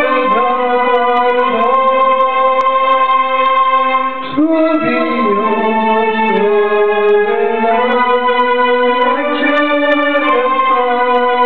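Live band music from a Korg keyboard and an acoustic guitar: a melody of long held notes that slide in pitch, with a brief dip in loudness about four seconds in.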